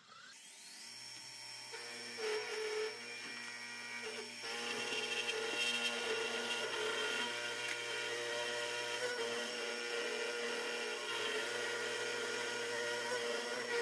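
Milling machine spindle running up to speed, then an end mill cutting a billet aluminium block: a steady motor whine with a noisier cutting sound over it that grows louder about four seconds in. This is a roughing pass that machines the block down before the finishing pass.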